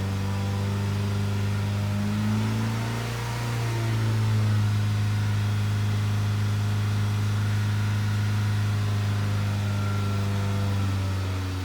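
2010 Nissan Sentra's 2.0-litre four-cylinder engine running, heard from inside the cabin, with a brief rise in engine speed about two to four seconds in before settling back to a steady run. The engine has a lean condition that the mechanic puts down to a vacuum leak.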